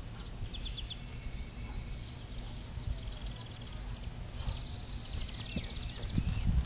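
Songbirds trilling and chirping over a steady low outdoor rumble, with a few dull thumps near the end as the heavy motorcycle is tipped over onto its side.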